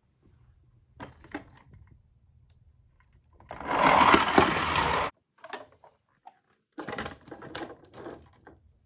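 Toy car rolling down a slope: scattered clicks and rattles, then about a second and a half of loud rolling rattle that stops suddenly, followed by more clicking and rattling.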